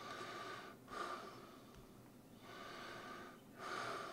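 A man breathing softly, with no speech: two slow breaths, each in and out.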